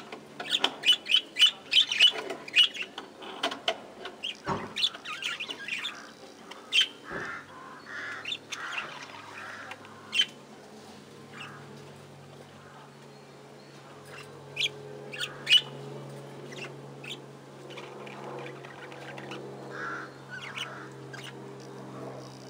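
A flock of budgerigars chirping and chattering: a dense run of quick high chirps in the first few seconds, then scattered calls.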